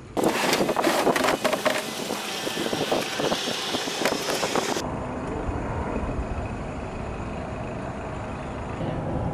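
A small dinghy being slid and lifted off a pickup truck's bed: a clatter of knocks and scraping over a wide hiss. After about five seconds this gives way to a steadier, quieter low rumble of outdoor noise.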